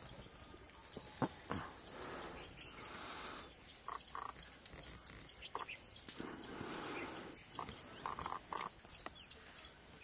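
Birds calling: a regular series of short high notes, about three a second, with brief lower chattering calls in between. There are a couple of sharp clicks about a second in.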